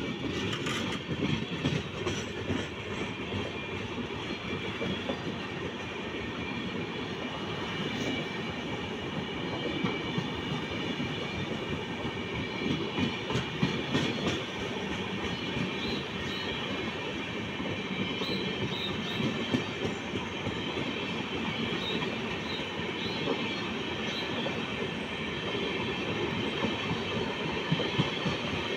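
Passenger train coaches running past at speed: a steady rush of steel wheels on the rails, with a few sharp knocks and a thin high ringing above it.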